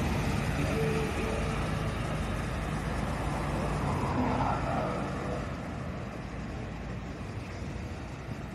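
Road traffic: a highway coach passes close by with engine and tyre noise, among passing cars, the sound dying down after about five seconds.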